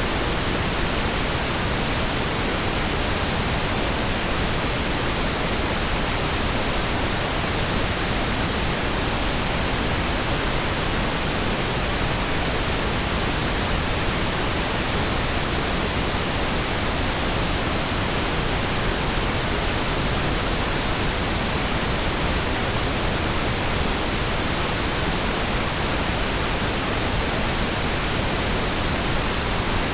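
Steady, continuous pink noise: an even hiss spread across all pitches, with no changes or breaks.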